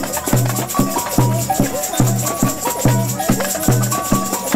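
Samba batucada drum band playing: bass drums strike a steady beat about three times a second. A constant shaker hiss and a two-note bell pattern sit above the drums.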